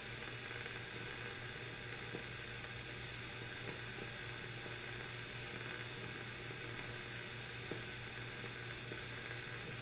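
Centrum Transita Automatic transistor radio on the shortwave band giving only a steady hiss with a low hum as the dial is tuned, picking up no stations or interference. The AM side is not working, which the owner puts down most likely to bad capacitors.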